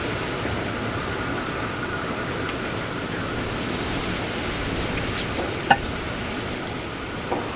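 Typhoon wind and rain making a steady rushing noise, with a brief sharp sound cutting through it a little over five seconds in.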